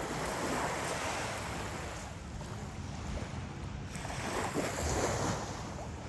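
Sea waves breaking and washing up the beach, surging twice about four seconds apart, with wind buffeting the microphone.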